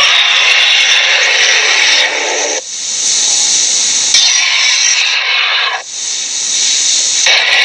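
A run of cartoon sound effects: hissing, noisy sounds, each lasting a second and a half to two and a half seconds and cut off abruptly into the next, with a change about two and a half seconds in, another at about four seconds, another near six seconds and another just after seven seconds.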